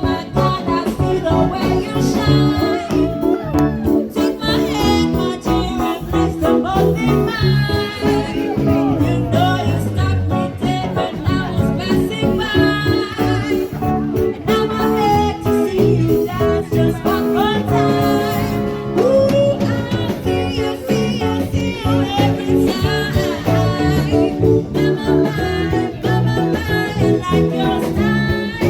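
Live band music: a singer over plucked guitar and a bass line, playing continuously.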